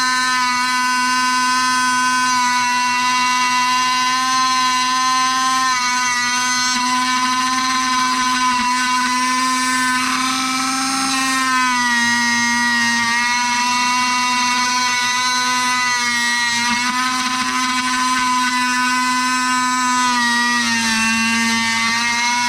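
Small milling machine running, its end mill cutting a keyway into a sprocket hub: a steady motor whine that dips slightly in pitch about halfway through and again near the end.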